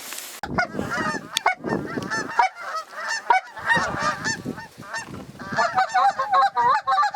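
Many short, overlapping goose honks and clucks, thinning out in the middle and building again into a dense chorus near the end.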